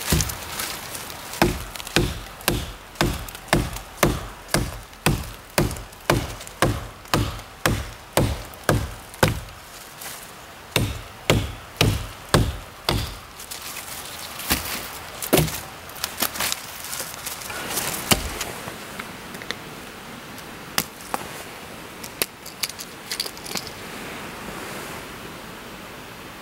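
A small axe, a Hultafors Scout hatchet, chopping a dead branch that rests across a log. The blows come steadily, about two a second, for the first dozen seconds, then thin out to a few scattered knocks near the end.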